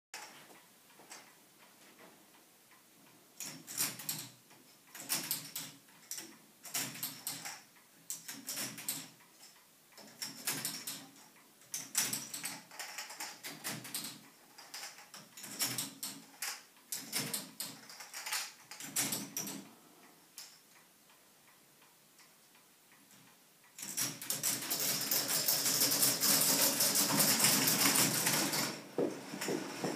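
A K'Nex binary calculating machine's plastic mechanism clicking and clacking in irregular bursts as bits are set. About 24 s in it breaks into a continuous loud clatter lasting about five seconds, as adding 1 to 1023 carries through every bit and resets the register to zero.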